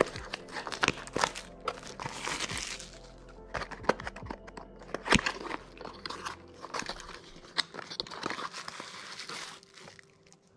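Small cardboard box being pried open and handled, its flaps crackling and scraping in many short sharp clicks. Near the end a bubble-wrapped part is pulled out with crinkling plastic. Soft background music runs underneath.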